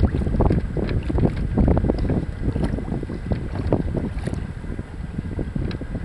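Gusty wind buffeting the microphone while an open canoe sails, with water splashing and slapping irregularly against the hull.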